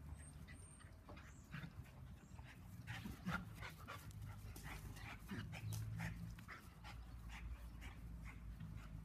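A Labradoodle and a Bernese Mountain Dog puppy playing together: faint dog panting with many short scuffs and clicks scattered throughout.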